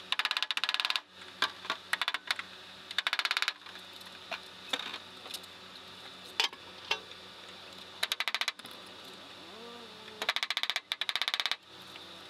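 Hammer striking a steel punch to drive out a Jeep door's hinge pins: bursts of rapid metallic clinks, with single taps between them.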